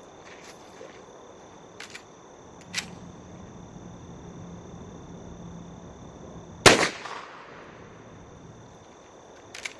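A single rifle shot from a Winchester lever-action .30-30, about seven seconds in, with a short echo trailing off. A few faint clicks come a few seconds before the shot.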